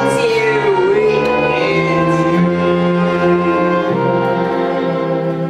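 Live pit orchestra of strings and brass playing long held chords in a musical number.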